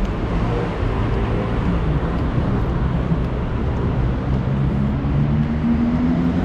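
City street traffic: vehicle engines running with a steady noise of passing cars, one engine's hum rising slightly in pitch about two thirds of the way through.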